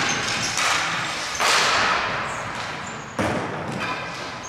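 Ball hockey play in a large hall: two sharp hits about two seconds apart, each ringing on and fading, with short high squeaks in between.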